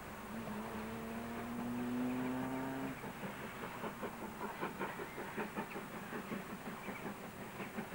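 Steam locomotive working hard with a train of coaches, its exhaust beats coming in an even rhythm of about three a second. Before the beats come through, a steady pitched drone rises slowly in pitch and stops about three seconds in.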